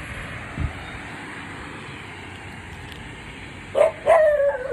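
A dog barking near the end: one short sharp bark, then a longer drawn-out bark that falls slightly in pitch. Faint road traffic runs underneath.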